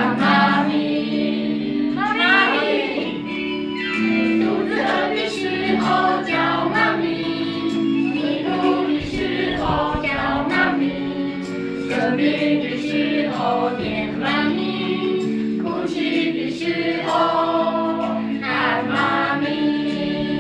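A youth choir of young, mostly female voices singing a song together, over held accompaniment notes that change in steps.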